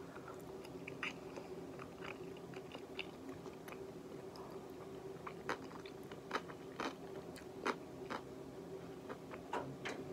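Close-up chewing with sharp, irregular crunches: someone eating crisp yellow pickled radish (danmuji). A steady low hum runs underneath.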